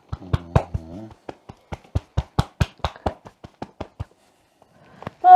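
Hands rapidly slapping a person's back in a percussive massage, about four to five sharp strikes a second, stopping about four seconds in. Music with a rising glide comes in right at the end.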